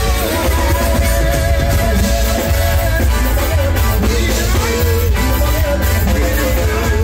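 Loud music with a heavy bass line played over a sound system, with a man's voice singing into a microphone over it.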